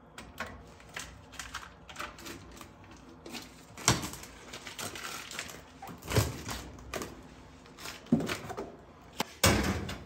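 Irregular clicks, taps and knocks from tools and furnace parts being handled while servicing an oil furnace, with a few louder knocks scattered through and one near the end.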